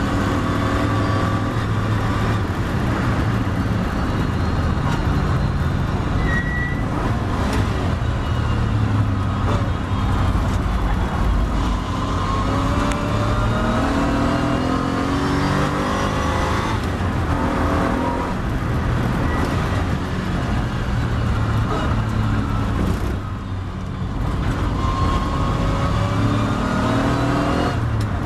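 Triumph TR7 race car's engine heard on board at racing speed, its note rising in repeated climbs through the gears and dropping as the car brakes for a corner from over 100 mph and accelerates out again.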